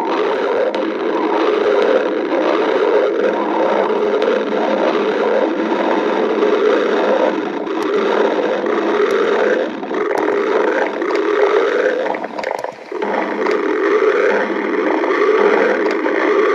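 Stomach growling: a long, loud, gurgling rumble that goes on almost without a break, shifting in texture as it goes, with a brief lull about twelve and a half seconds in.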